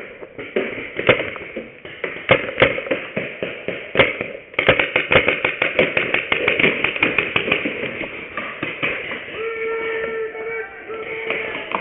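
Paintball markers firing: a few scattered shots, then a rapid string of shots from about four and a half seconds in. Near the end a steady held tone sounds, broken once.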